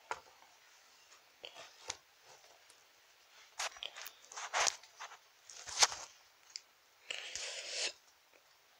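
Rustling and light clicks of toy figures and a fabric-dressed doll being handled and moved about on a bedspread, with a longer rustle near the end.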